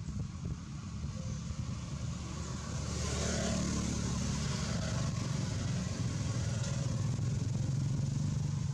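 A motor vehicle's engine running steadily, growing louder about three seconds in.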